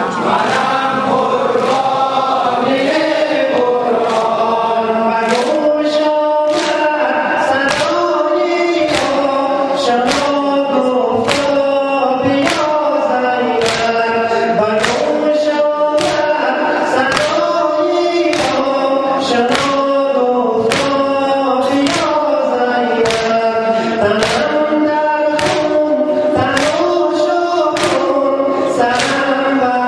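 A large group of men chanting a mourning lament in unison, with a steady beat of chest-beating slaps (sineh zani). The slaps become regular about five seconds in.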